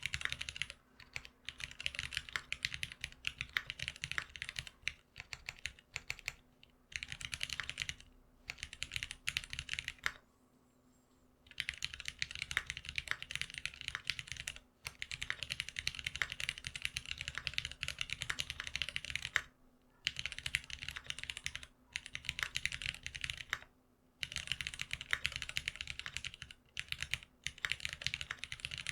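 Typing on a GeonWorks F1-8X custom mechanical keyboard fitted with lubed Cherry retooled black linear switches on 65 g long springs. It runs in fast bursts of keystrokes, with a few short pauses and one longer pause of about two seconds around the middle.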